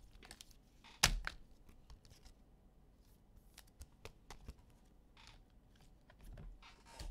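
Trading cards being handled on a table: faint rustling and small ticks, with one sharp tap about a second in.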